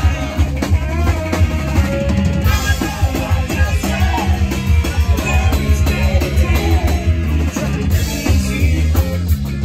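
Live band playing a ska-flavoured reggae-rock song: electric guitar, drum kit and a heavy bass line, with a singer at the microphone.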